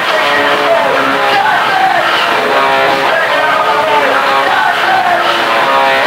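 Punk rock music with electric guitar, loud and unbroken, built on a figure that repeats about once a second.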